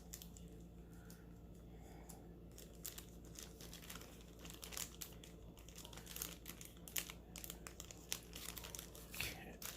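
Faint crinkling and rustling of plastic jewelry packaging being handled, with many irregular small crackles, thicker from a couple of seconds in.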